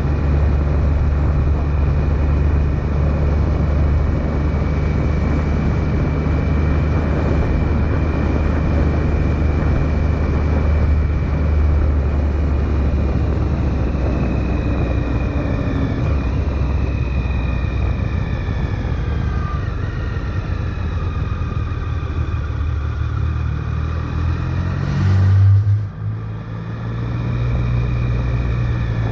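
Triumph Sprint GT's 1050 cc three-cylinder engine running on the move under a steady rush of wind and road noise. Its pitch falls gradually through the middle as the bike slows. Near the end a brief louder surge cuts off suddenly, then the engine picks up again.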